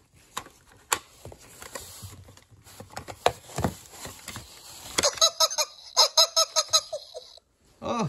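Battery-operated Elmo toy: a few light clicks as its mechanism moves, then from about five seconds in a fast, regular run of electronic beeps at the same few pitches, several a second, which stops shortly before the end.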